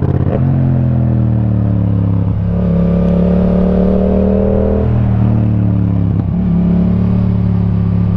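2018 Yamaha MT-07's parallel-twin engine through an Akrapovic titanium exhaust, running as the bike rides, heard from a helmet microphone. The note shifts in pitch, with brief dips about two, five and six seconds in.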